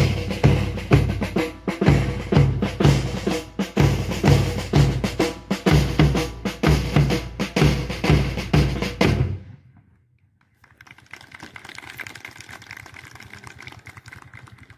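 Marching drum beat of bass drum and snare, about two beats a second, keeping time for a rhythmic rifle drill; it stops abruptly about two-thirds of the way through, leaving only faint background noise.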